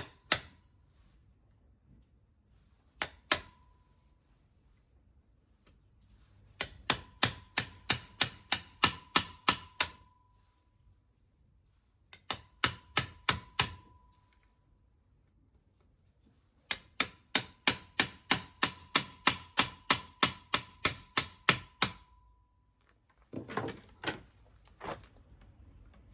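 Hammer blows on metal engine parts, coming in bursts of rapid strikes at about four a second, each with a short metallic ring. Near the end there are two or three duller knocks.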